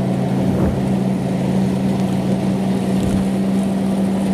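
Yanmar 4T100 engine of a farmer-built rice combine harvester running steadily, a constant low drone with a noisy mechanical clatter over it.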